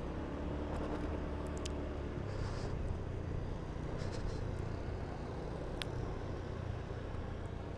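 A Honda Beat scooter's 110 cc single-cylinder engine running steadily on the move, under a constant rumble of wind and road noise.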